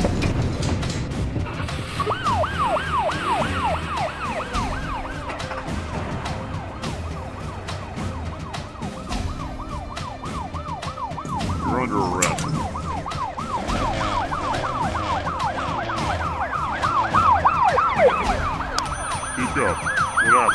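Police siren in a fast yelp: rapid falling sweeps, about four a second, starting about two seconds in.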